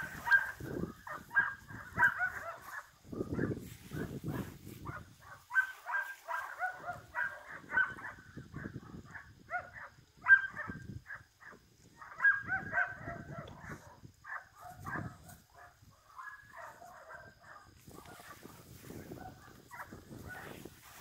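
Puppy whining and yipping in rapid, short, high-pitched cries, thinning out near the end.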